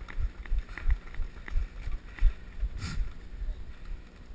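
Footsteps of a person running, heard as thuds about three a second through a body-worn camera. They fade out near the end. A brief hiss comes about three seconds in.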